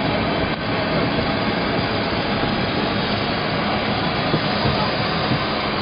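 Steady rushing noise inside an airliner cabin, even and unbroken.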